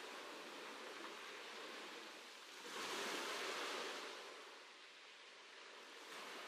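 Ocean waves washing in, faint and fading out, with one swell about three seconds in.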